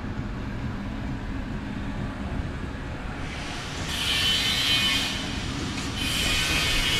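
Monarch engine lathe running: a steady low machine rumble, with a high whine that comes in about three seconds in, drops away near five seconds and returns about a second later.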